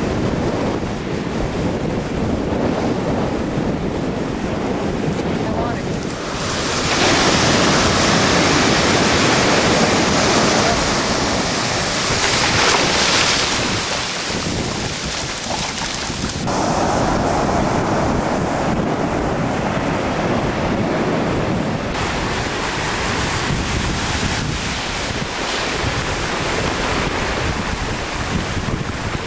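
Ocean surf breaking and washing around the legs in the shallows, with wind buffeting the microphone. The mix changes abruptly several times.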